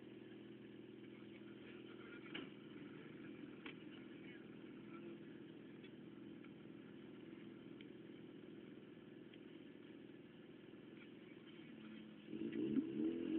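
Car engine idling steadily, then revving up loudly about twelve seconds in.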